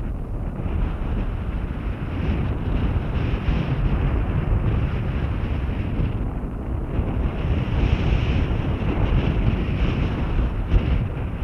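Wind buffeting the microphone of an action camera carried by a paraglider in flight: a steady low rumble that swells and eases in gusts.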